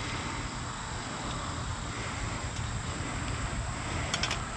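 Steady outdoor background noise with wind buffeting the microphone, and a few light clicks about four seconds in.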